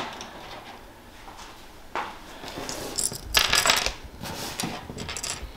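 Small CPU-cooler mounting parts, metal pins and black plastic clips, handled and set down on a wooden tabletop: light clicks and rattles, with a single click about two seconds in and a cluster of clicks a second later.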